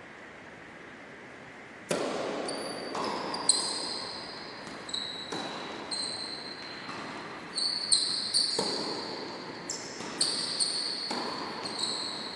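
Tennis rally on an indoor hard court: a serve about two seconds in, then a string of sharp racket hits and ball bounces at irregular intervals. Each hit is followed by a brief high ring in the large hall.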